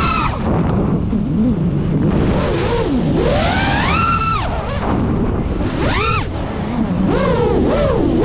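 Brushless motors and propellers of a Geprc Mark5 5-inch FPV quadcopter whining, the pitch sweeping up and down with the throttle, with a sharp spike about six seconds in, over a steady rush of wind and prop wash.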